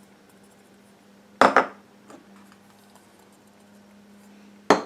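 Two sharp clinks of kitchen utensils against dishes, about a second and a half in and again near the end, over a faint steady hum.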